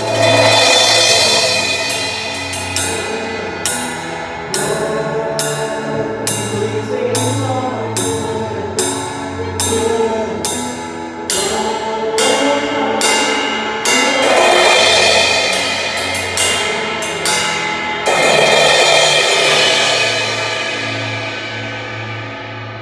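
Live band music led by a drum kit: sharp hits on a slow, steady beat about once a second over sustained low notes, with cymbal swells three times. The cymbals fade away near the end.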